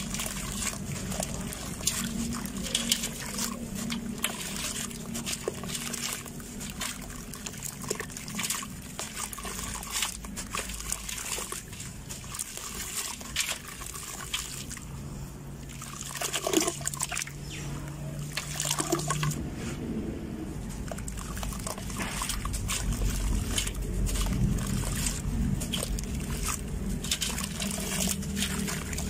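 Dry, gritty sand-cement lumps being crushed and crumbled by hand, with sand and crumbs trickling and splashing into water in a steel tub. Many small crackles run throughout.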